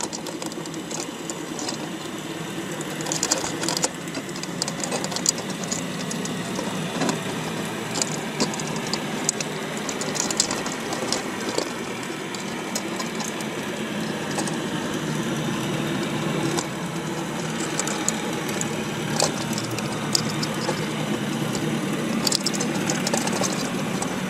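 Underwater clicking and crackling from crabs crawling over each other and the wire of a crab pot: many sharp, irregular clicks over a steady low hum.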